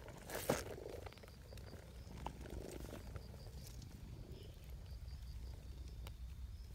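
A cat purring with a steady low rumble as it is stroked. A sharp click comes about half a second in.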